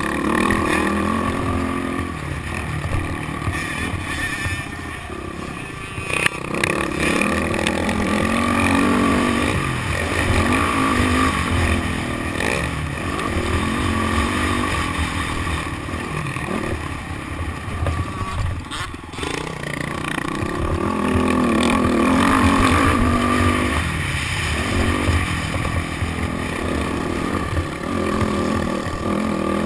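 Motocross bike's engine revving up and down repeatedly as it rides the track, heard from on board.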